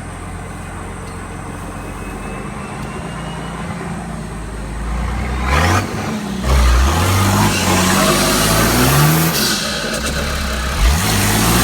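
Nissan TD42 4.2-litre straight-six turbo diesel idling steadily, then revved in several blips from about halfway. The Garrett GT2860RS turbo hisses and flutters as the throttle is snapped shut.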